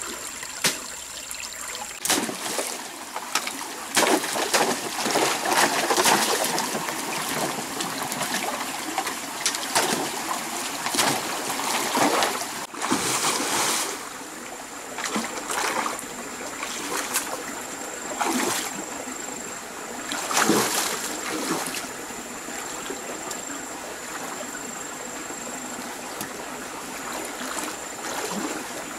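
Water splashing and sloshing in irregular bursts over a steady trickle of running water; the splashing dies down near the end, leaving the trickle.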